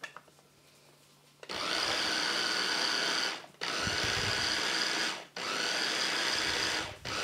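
Small food processor pulsing, its motor whirring with a whine in four bursts of under two seconds each, split by short breaks, as it churns frozen pineapple and yogurt into a slush. It starts about a second and a half in.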